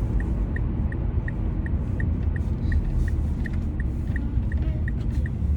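Car cabin road noise while driving: a steady low rumble, with a short high tick repeating evenly about three times a second.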